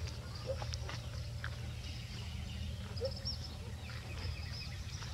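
A few faint, high bird chirps over a steady low rumble of outdoor background noise.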